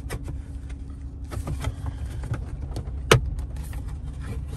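Gloved fingers pressing and fumbling at the plastic overhead console trim while feeling for its release clips: scattered small plastic clicks and taps, with one sharper click about three seconds in, over a steady low hum.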